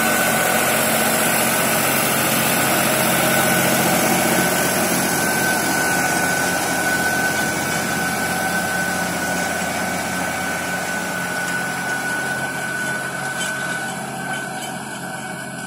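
New Holland 6010 tractor's diesel engine running steadily under load while pulling a seven-tine chisel plough through dry soil, with a thin steady whine over the engine note. It grows gradually fainter over the last few seconds as the tractor moves away.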